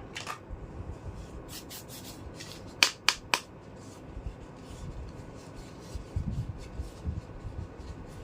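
Small plastic toy kitchen pieces being handled: light rubbing with scattered clicks and taps, three sharp clicks close together about three seconds in, then soft low knocks near the end.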